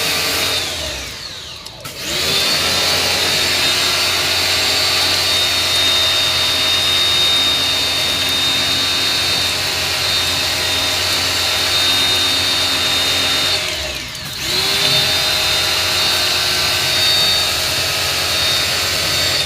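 An electric motor-driven tool running with a steady high whine. It is switched off and winds down twice, each time starting up again and rising back to speed within about a second, and it is cut again at the end.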